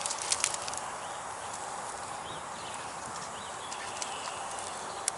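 Small campfire of dry twigs and birch bark crackling, with a cluster of pops in the first second and a single sharp pop near the end.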